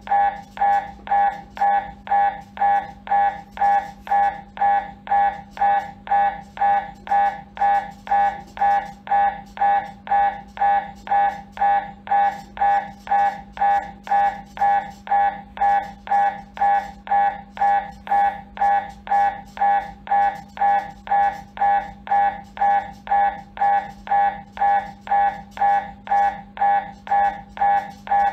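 MRI scanner's gradient coils pulsing through an imaging sequence: a loud, pitched buzzing beep repeating evenly about one and a half times a second, over a steady low hum.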